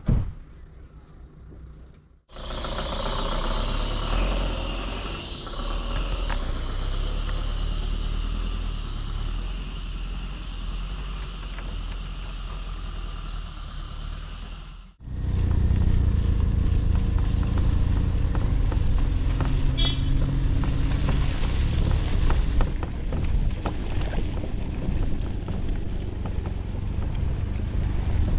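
A motor vehicle running as it drives, a steady engine rumble with road and wind noise. The sound cuts off abruptly twice, about two seconds in and about halfway through, and is louder and deeper after the second cut.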